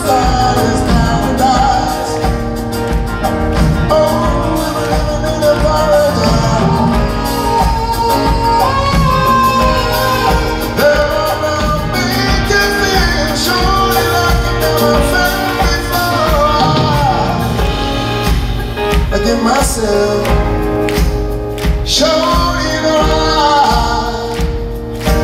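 Live band music with a male lead singer's vocals, recorded from the audience in a concert hall.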